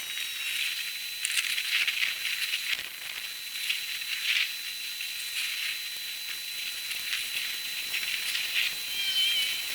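Outdoor storm ambience played back at 30 times normal speed, turned into a steady high hiss with frequent short flare-ups and a thin, steady high whine.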